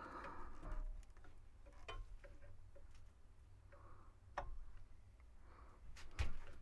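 A few sharp, scattered clicks and taps from handling the cue ball shifter knob and drill setup while lining the bit up with a pilot hole, over a faint steady low hum.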